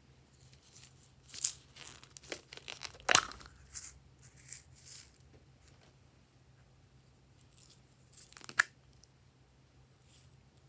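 Crinkling, tearing rustles and sharp clicks of small slime toppings and their packets being handled and dropped into a glass bowl of slime. A cluster of sounds in the first half, the loudest about three seconds in, and one more sharp crackle near the end.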